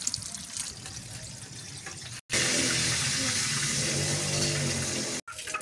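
Hot oil sizzling and crackling as whole stuffed eggplants fry in an iron karahi. It breaks off sharply about two seconds in, comes back as a louder steady hiss, and breaks off again near the end.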